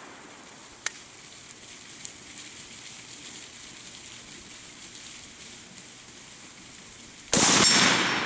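AK-74 rifle in 5.45x39 firing a single shot about seven seconds in, its report ringing out and fading over a second or more. Before it, the echo of the previous shot dies away, and a faint click sounds about a second in. These are slow, single aimed shots to confirm the rifle's zero at 100 meters.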